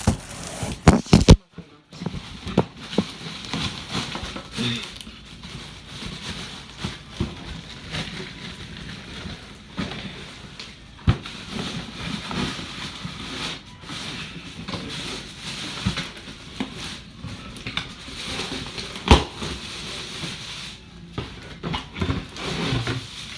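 A cardboard box and its packaging being opened and handled by hand: irregular rustling and crinkling with scattered clicks and knocks, and a few sharp loud snaps.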